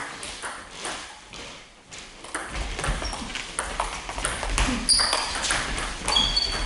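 Celluloid-type table tennis ball clicking rapidly off bats and the table during a rally. The clicks are sparse about a second in and come thick and fast from about two seconds on, with a couple of short high squeaks near the end.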